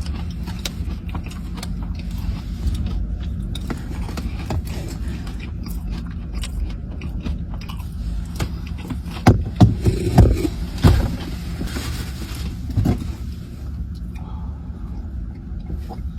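Close-up chewing and mouth sounds of someone eating a soft caramel toffee butter cake, with small wet clicks and a few louder smacks about nine to thirteen seconds in, over a steady low hum.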